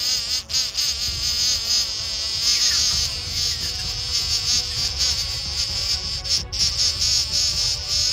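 Loud, continuous insect-like buzzing whose pitch wavers up and down.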